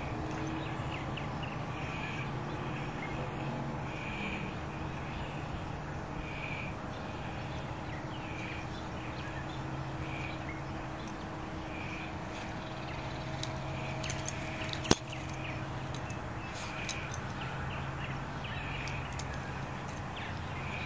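A bird calling over and over, one short call every second or two, over a steady low hum of outdoor background noise. A single sharp click about three-quarters of the way through.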